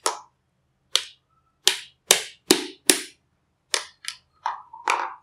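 Steel laminations of a small step-down transformer's core being pried loose with a screwdriver, giving about ten sharp clicks and taps of metal on metal, some in quick runs of two or three.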